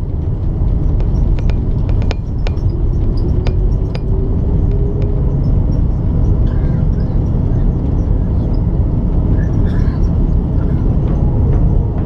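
Cabin of an Airbus A330-200 rolling down the runway after touchdown, heard at a window seat over the wing: a loud, steady rumble of engines and wheels, with sharp rattling knocks in the first few seconds.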